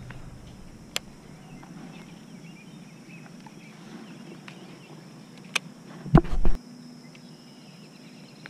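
A steady high insect drone, crickets, under a faint outdoor background, with a few light clicks of handling the rod and reel. About six seconds in, a short loud rumble of handling noise on the microphone.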